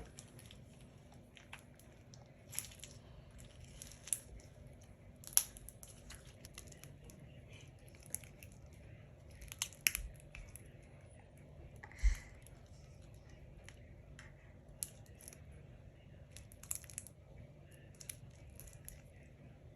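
Slime being handled and poked: faint, scattered clicks and crackles, with a louder pop about twelve seconds in.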